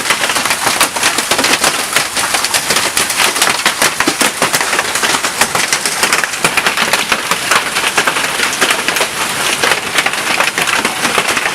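Hailstorm with rain: golf-ball-sized hailstones pelting down, a dense, steady clatter of many sharp hits over the hiss of the rain.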